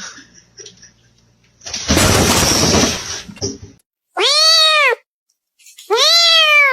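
A loud burst of rushing noise lasting over a second, then a cat meowing twice: two long meows, each rising and then falling in pitch.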